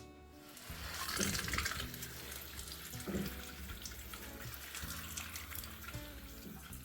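Water running from a tap into a sink, a steady hiss that comes on about a second in, with soft guitar music underneath.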